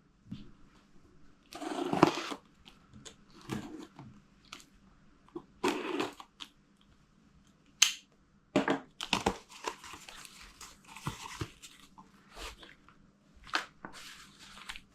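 A cardboard parcel being opened by hand: tearing, crushing and crinkling of packaging in irregular bursts, with a sharp click about eight seconds in.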